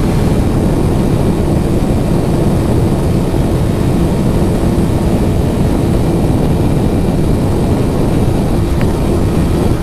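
Yamaha R15M's single-cylinder engine held steady near top speed in sixth gear, under heavy wind rush on the onboard microphone. The pitch neither rises nor falls.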